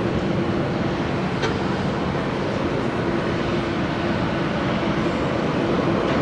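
Boeing 737-800's CFM56-7B jet engines running steadily, a constant noise with a low steady hum and no rise or fall in pitch.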